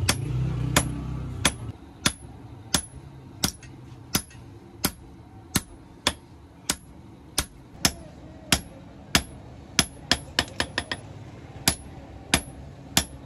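Hand hammer striking an iron blade on a steel anvil block, sharp ringing metal clangs in a steady rhythm of about one and a half blows a second, with a quick run of lighter taps about ten seconds in. A low rumble sits under the first few blows and fades out after about a second and a half.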